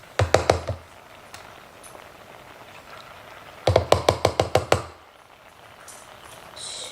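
A spoon knocked rapidly against the rim of a pan to shake off sour cream, in two quick runs of knocks about three seconds apart, the second longer.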